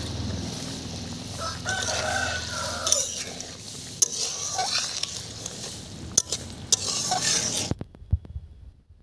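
Curry simmering and sizzling in a wok over a wood fire, with a few sharp pops. A rooster crows once about two seconds in. The sound cuts off suddenly near the end.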